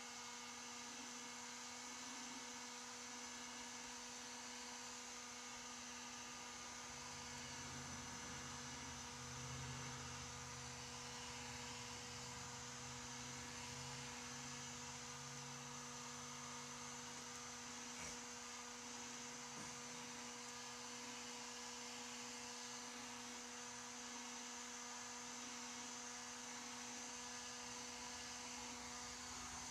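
Handheld electric heat gun running steadily: an even motor hum with fan hiss as it blows hot air onto PVC pipe to soften the plastic for shaping a net pot hole. A lower hum swells for several seconds in the middle.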